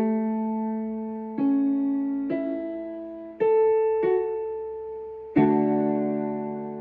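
Background music: slow, soft piano chords, each struck and left to ring out, with a new chord every second or so.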